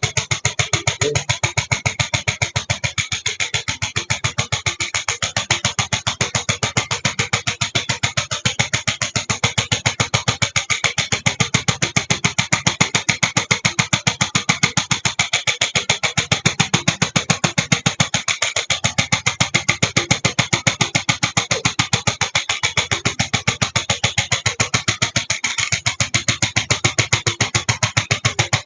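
Electric chiropractic adjustment gun (750 N) firing a rapid, even train of thrusts, many a second, against a patient's back, with a short break every few seconds as it is moved to a new spot.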